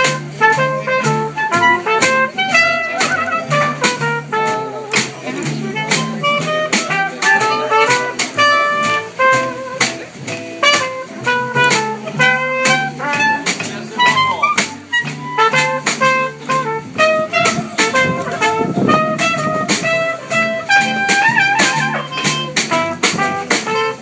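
Small live jazz band playing: trumpet and clarinet lines over electric guitar, a plucked upright bass line and a drum kit keeping a steady beat.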